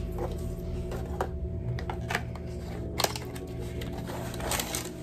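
A blind-box key package being handled: cardboard and a foil pouch giving scattered light clicks and rustles. There is one sharper click about three seconds in and a few more near the end, over a steady low background tone.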